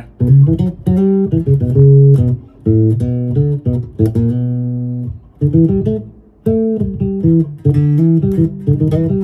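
Electric bass guitar played through a bass amplifier with its tone knob turned fully down for a dull tone: a run of plucked notes, with one note held and ringing for about a second near the middle.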